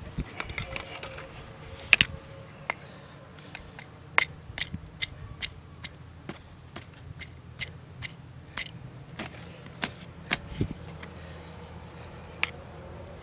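Small metal hand tool picking and scraping at stony soil around a buried clay pot, a run of sharp, irregular clicks and taps about one or two a second, the loudest about two seconds in.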